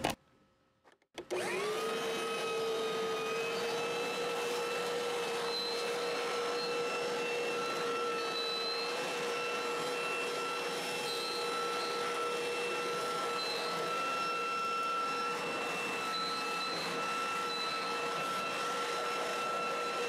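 A second of near silence, then a leaf blower starts, its whine rising briefly as it spins up, then running steadily while it blows dirt and leaves off the mower.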